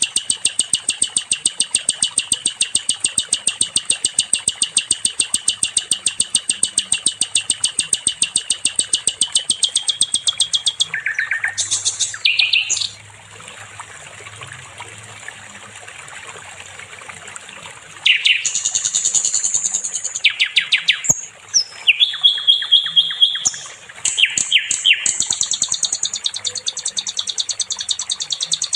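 Sikatan londo songbird singing: a long, fast trill of high, evenly repeated notes, broken about halfway by a short quieter pause and bursts of varied chirping phrases, before the steady trill returns near the end.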